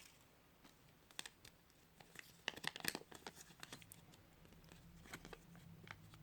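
Faint crinkling and small clicks of Kinder Surprise egg wrapping and toy parts being handled, in a short cluster about two to three seconds in, with a few scattered ticks later.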